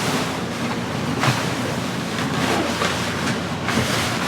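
Water rushing and splashing along the hull of a VO65 racing yacht sailing fast under spinnaker, with wind buffeting the microphone. A sharper, louder splash or hit comes about a second in.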